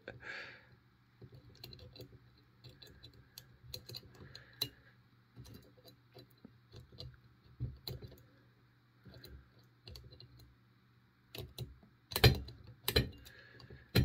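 Steel picking wires clicking and scraping inside the keyway of an all-brass two-lever padlock. One wire tensions the bolt while the other works the levers. Faint scattered ticks throughout, with a few louder clicks near the end.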